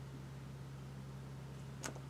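Faint steady low hum, with one brief faint click near the end.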